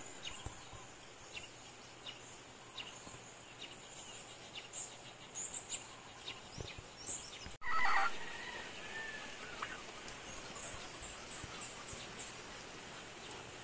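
Farmyard ambience: chickens clucking softly under many short, high chirps of small birds. A brief louder sound comes just after a cut, about eight seconds in.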